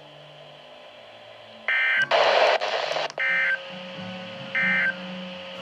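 Emergency Alert System end-of-message data bursts over NOAA Weather Radio: three short warbling digital bleeps about a second apart, with a one-second burst of static between the first two. They mark the end of the broadcast warning.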